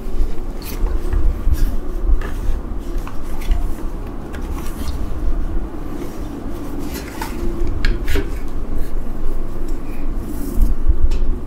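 A full-face helmet in a cloth drawstring bag being handled: fabric rustling, with scattered clicks and light knocks and bumps as it is turned over and set down.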